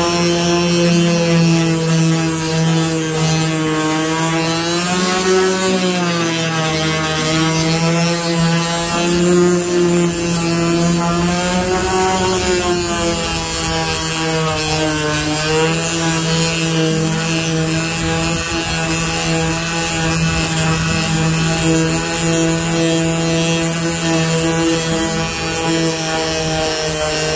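Power sander running steadily while sanding the RV's fiberglass roof, its motor pitch dipping and recovering briefly about three times.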